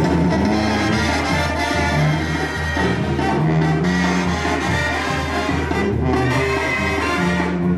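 Brass band music with a steady, pulsing bass line and sustained horn notes.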